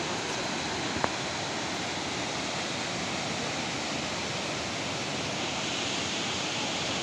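Steady rushing of the Ouzoud waterfalls, with one sharp click about a second in.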